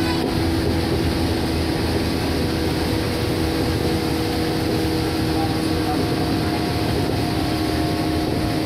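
Shinano Railway 115 series electric train running, heard from inside the car: a steady hum and running noise holding two constant tones, with a higher tone joining about four seconds in.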